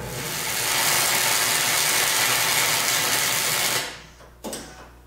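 Grinder grinding out a weld on steel: a loud, steady, hissing grind that stops abruptly just before four seconds in, followed by a single knock.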